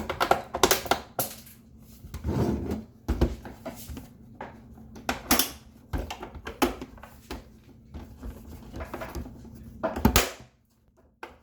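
Plastic side panel of a Hamilton Beach FlexBrew coffee maker being pressed and popped back onto the housing: irregular plastic clicks, knocks and rattles as its latches snap back in, with a sharp knock about ten seconds in.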